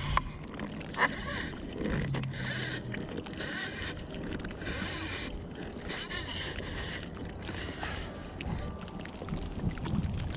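Water splashing around a pedal-powered waterbike in a steady rhythm, about one splash a second.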